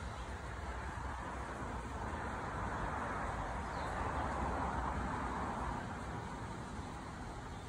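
A passing vehicle over a steady low rumble of background traffic: the hiss swells over a few seconds, peaks midway and fades again.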